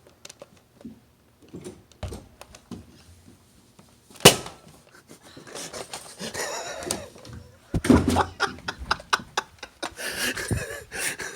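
Soft footsteps and small clicks, then a single sharp snap about four seconds in, followed by startled cries and laughter with a few knocks.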